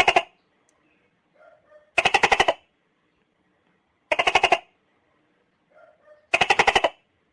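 Juvenile tokay gecko calling: four short rattling croaks about two seconds apart, each a quick run of clicks.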